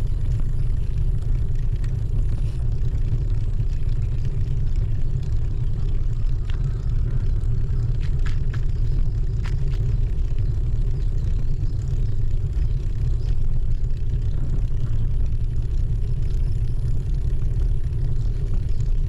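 Steady low rumble of a bicycle ride: wind buffeting the camera microphone and tyres rolling over a brick-paver path. A few sharp clicks come about eight and nine seconds in.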